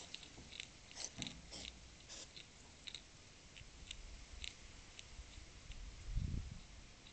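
A hedgehog eating from a food dish: quick, irregular crunching clicks as it chews. There is a low, dull thud about six seconds in.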